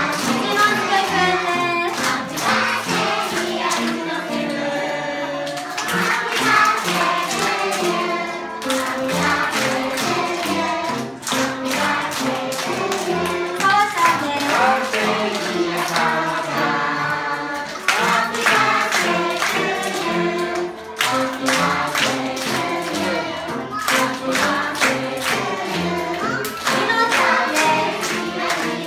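A room full of young children and teachers singing together to upright piano accompaniment, with hand-clapping along to the song.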